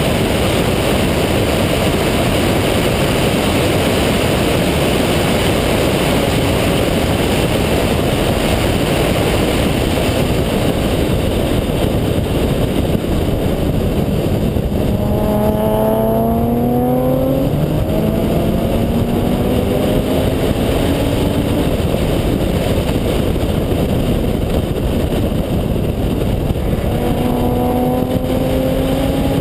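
Single-turbo Mazda RX-7's two-rotor rotary engine under power on a race track. About halfway through the revs drop as it slows for a corner, then climb again as it accelerates out, with another rising pull near the end.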